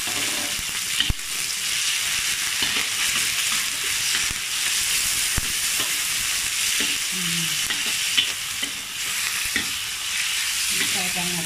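Chicken pieces sizzling in hot oil in a wok while a metal wok spatula stirs and scrapes them around, with a steady frying hiss and the occasional sharp click of the spatula against the pan.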